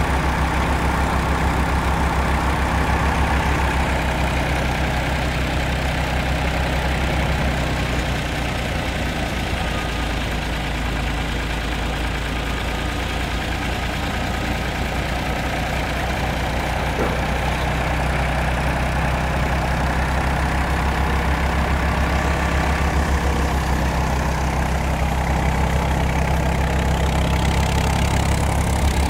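New Holland 480 tractor's three-cylinder diesel engine running steadily at a constant speed, driving a hitched thresher.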